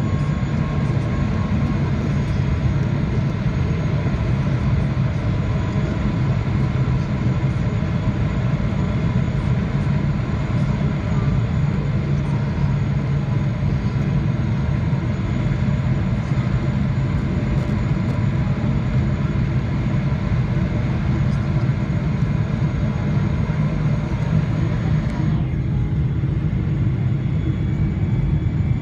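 Cabin noise of a Boeing 777-300ER descending on approach, at a window seat over the wing: a steady low rumble of airflow and GE90-115B engines with faint steady whining tones. The higher hiss drops away suddenly about 25 seconds in.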